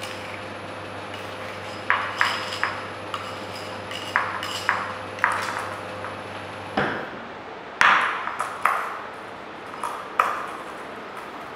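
Repeated sharp clinks and knocks on a porcelain mixing dish as moist soil is mixed in it with a spatula and by hand: about a dozen irregular strikes with a short ring, loudest about eight seconds in. A faint steady hum underneath stops about two-thirds of the way through.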